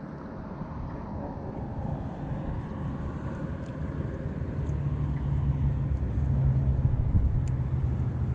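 Boat engine running with a steady low hum that grows louder through the second half.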